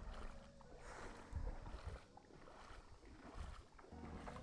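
Water sloshing and splashing, with low rumbles of wind on the microphone, loudest about a second and a half in.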